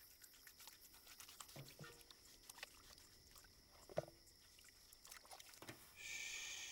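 Very quiet: faint small sloshes and drips of bathwater in a metal washtub as the bather moves and reaches out of it, with a sharper click about four seconds in and a brief rustle near the end.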